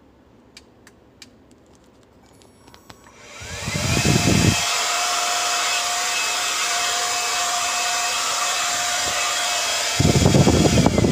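Cordless hair dryer switched on about three seconds in after a few faint clicks: its motor whine rises and settles to a steady pitch over a strong rush of air. Low rumbling gusts come twice, about a second after start-up and near the end, and the whine dips slightly at the very end.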